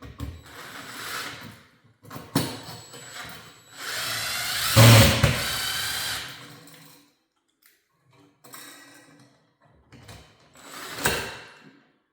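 Cordless drill/driver running in several short bursts, the longest and loudest a few seconds in, driving 8-32 machine screws to fasten a light fixture's mounting bracket to the electrical box.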